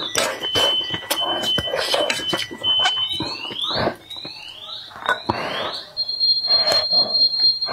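Eating sounds, chewing and chopsticks clicking against food and pot, over a thin, high whistling tone. The tone holds steady for a couple of seconds, then rises in several quick sweeps, then holds steady again at a higher pitch near the end.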